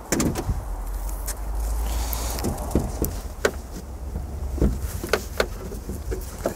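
Scattered clicks and knocks as the hood latch at the front of a crash-damaged BMW 7 Series is worked by hand, over a low rumble.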